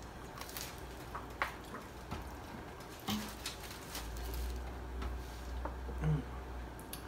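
Two people eating quietly: chewing, with scattered small clicks and rustles of food and paper wrappers, and a low rumble starting about four seconds in.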